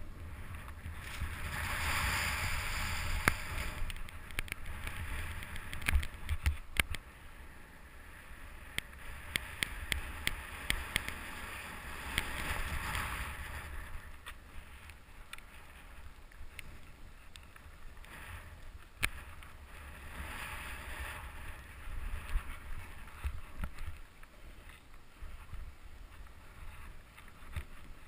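Snow hissing and swishing under a snowboard riding through powder, louder in a few stretches as the rider turns, with wind on the microphone and scattered clicks and knocks.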